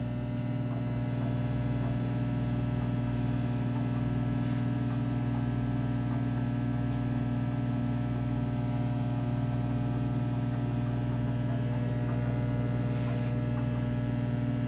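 Emerson microwave oven running while it cooks a load of pizza rolls: a steady, unchanging low electrical hum.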